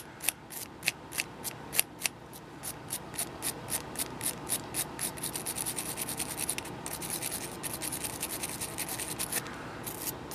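Small wire brush scrubbed back and forth over the hot tip of a soldering iron to clean it: quick scratchy strokes, about three a second at first, speeding up into rapid scrubbing through the middle, then stopping with a few last strokes near the end.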